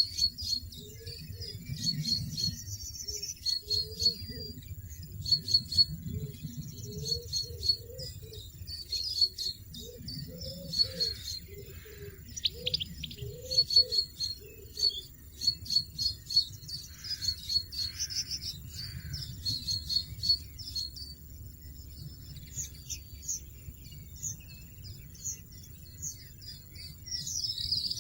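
European goldfinches chirping: runs of short, high, thin calls repeated over and over, thinning out about three-quarters of the way through and picking up again at the end, with a faint steady insect trill beneath.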